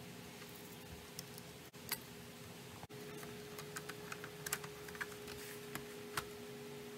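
Scattered small clicks and taps of plastic and metal parts being handled and fitted into a homemade bench power-supply case, more frequent in the second half, over a steady low hum.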